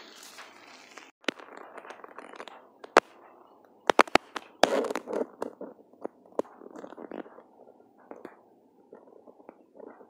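Handling noise from a handheld phone: a crackling rustle broken by irregular sharp clicks and knocks, with a quick cluster of several clicks about four seconds in.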